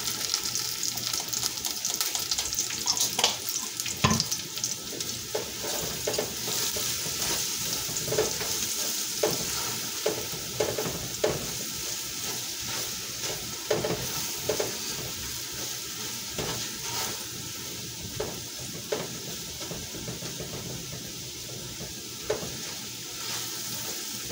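Onions and garlic sizzling as they fry in a nonstick pot, while a spatula stirs them, scraping and knocking against the pot again and again; the loudest knock comes about four seconds in.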